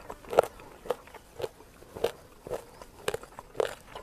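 Close-miked chewing of crunchy spicy chicken feet, one crisp crunch about every half second, seven in all.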